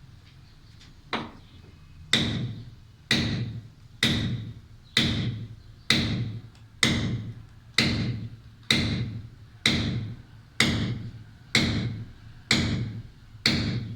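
Hammer driving a steel chisel into concrete, striking steadily about once a second, each blow a sharp metallic clink that rings briefly, after a single lighter knock.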